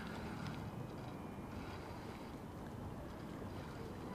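Steady low background noise of wind and river water.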